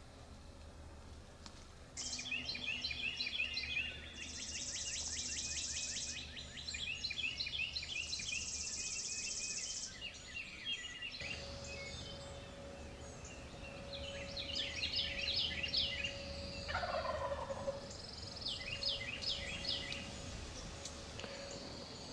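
Eastern wild turkey gobbling, amid the chirps and trills of songbirds in the dawn chorus.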